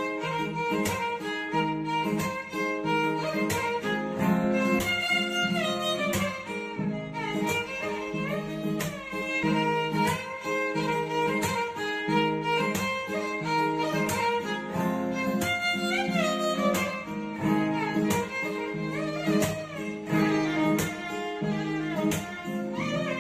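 Background music: a melody with sliding notes over a steady beat.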